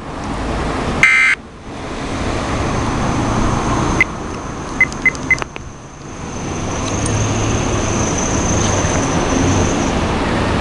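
Weather radio receiver between broadcast segments: a short, loud electronic tone about a second in, then steady static hiss with a few brief faint beeps near the middle.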